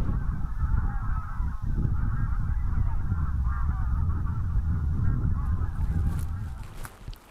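A flock of geese calling, many overlapping honks, over a steady low rumble; the sound fades out near the end.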